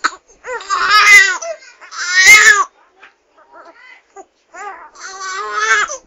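Baby crying: two loud wailing cries in the first three seconds, a few softer short whimpers, then another long wail near the end.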